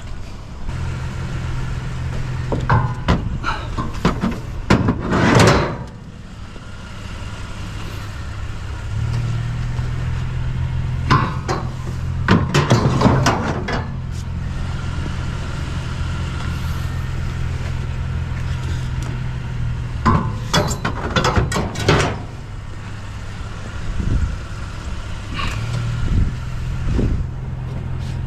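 A vehicle engine idling steadily, broken by several spells of metal clanking and clattering as curbside scrap is handled and loaded.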